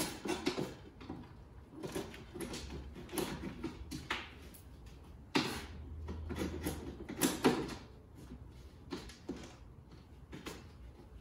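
Hand chisel scraping old glazing putty out of a wooden window sash: irregular scrapes and sharp clicks of the blade against putty, glass and wood, with a few louder strokes around the middle.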